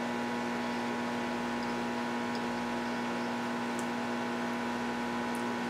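Steady electrical mains hum made of several fixed pitches, with a couple of faint ticks.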